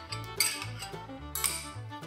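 Background music with a steady beat: a melody over repeating bass notes.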